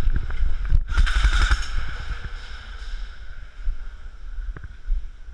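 Rumbling wind and handling noise on a body-worn action camera as the wearer moves on foot, with dull low knocks of movement. About a second in comes a brief loud rustling hiss.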